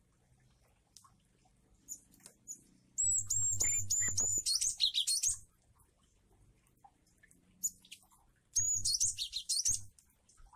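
Caged glatik wingko (cinereous tit) singing in two high-pitched bouts, about three seconds in and again near the end. Each bout opens with a quick run of repeated, dipping notes and breaks into a fast, varied twitter. Single faint calls come in between.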